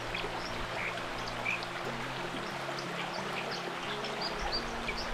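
A dipper singing in short, high chirping notes over the steady rush of a shallow, rocky stream, with soft background music underneath.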